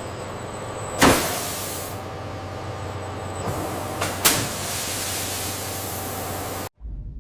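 Steady factory machinery noise with a low hum, broken by a sharp knock about a second in and two more about three seconds later. It cuts off suddenly near the end.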